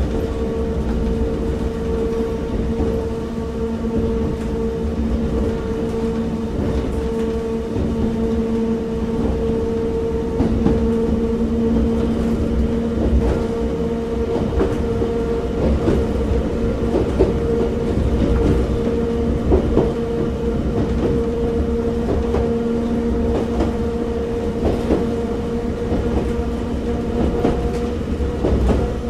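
Inside a KuMoHa 61 old-type JNR electric railcar running hard up a grade, heard from the cabin. There is a steady motor-and-gear hum over the rumble of the wheels, with scattered rail-joint clicks.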